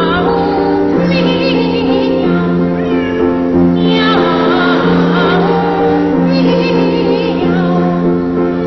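Boy trebles singing in short phrases of mock cat meows ('miau'), the only words of the piece, over piano accompaniment.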